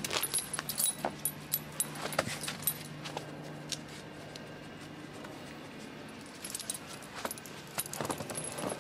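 Metal clips on a kelpie puppy's lead and harness jingling and clinking as the dog moves along a track, with the soft sound of footsteps in snow. The clinks are scattered, busier at the start and again near the end.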